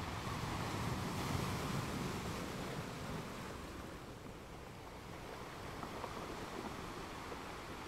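Sea surf washing onto a sandy beach, a steady rushing noise with wind on the microphone, louder in the first few seconds.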